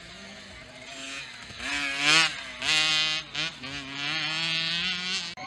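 Small youth motocross bike's engine revving in bursts as the rider works the throttle, the pitch climbing and dropping again. The revs are loudest about two and three seconds in.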